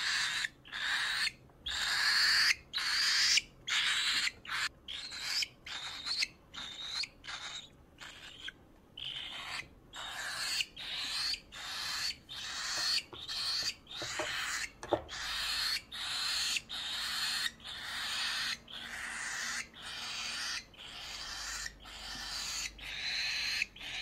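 An 18-day-old cockatiel chick giving harsh, hissing food-begging calls over and over, about one to two a second with short gaps between.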